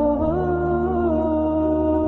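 Slow background music: a held melody line that slides between notes over a steady low drone.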